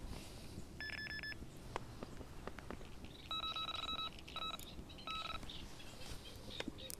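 Electronic carp bite alarms on a rod pod beeping: a short run of quick beeps about a second in, then a longer, lower-pitched beep from a second alarm around three seconds in, followed by two short beeps. Light clicks of handling the rods between them.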